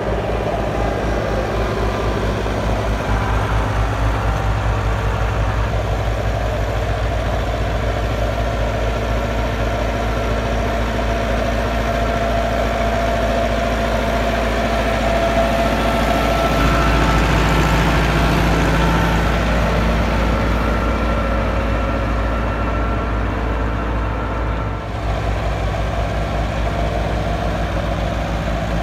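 Massey Ferguson 385's 85 hp four-cylinder diesel engine running steadily under load as the tractor pulls a rotavator through the soil. It grows louder a little past the middle, with a brief dip near the end.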